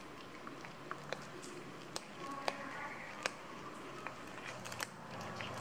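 Cats chewing and crunching fish bones and scraps, with irregular sharp crunches.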